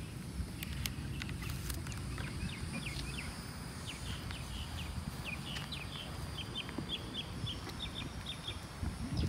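A small bird chirping: a series of short high notes that begins about two and a half seconds in and comes in quick runs before dying away near the end, over a steady low rumble.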